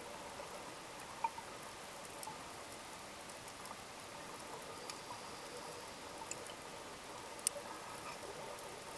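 Underwater reef ambience heard through a camera housing: a steady muffled hiss with scattered faint clicks and crackles, and two sharper clicks, one about a second in and one near the end.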